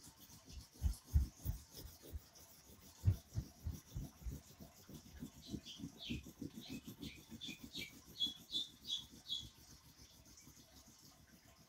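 Wax crayon rubbed hard back and forth on paper over a board, shading in a dark sky with quick, even strokes, about three or four a second, that die away near the end.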